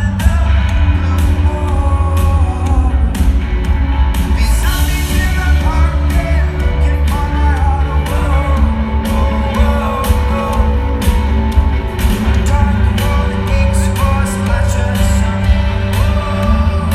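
Live rock band playing a song: a drum beat, heavy bass and guitars, with a male lead vocal singing over them.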